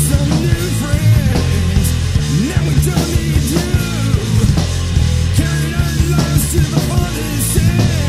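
Grunge-style rock song played by a full band: distorted electric guitars and bass over a drum kit with crashing cymbals.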